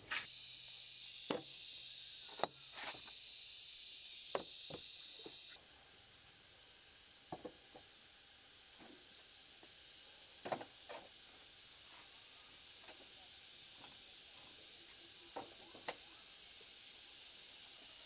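A steady high insect chorus, with sharp knocks and taps every second or two. About five seconds in, the hiss narrows to a pulsing high buzz.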